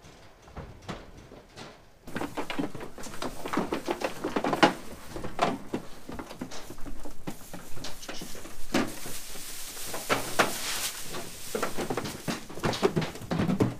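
Sheep moving about on straw in a pen: irregular knocks, shuffles and rustling from hooves and bodies, louder from about two seconds in.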